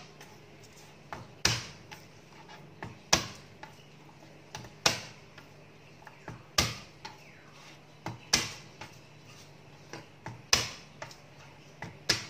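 Cleaver chopping garlic cloves on a plastic cutting board: a sharp knock of the blade on the board about every one and a half to two seconds, with lighter taps between.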